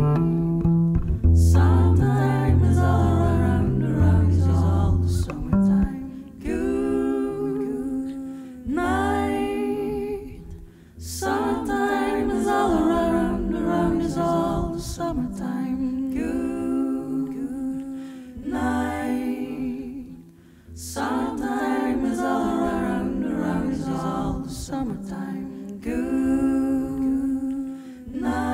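A woman singing a slow melody into a microphone in phrases of a few seconds, with short pauses for breath between them. Low plucked double bass notes sound under the voice in the first few seconds, and then the voice carries on mostly alone.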